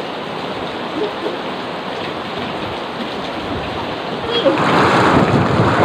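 Heavy rain pouring steadily, swelling louder about four and a half seconds in.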